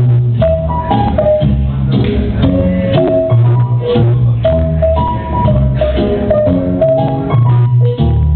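Loud recorded song playing: a bass line of held notes under a melody of short pitched notes, with drums and percussion strikes.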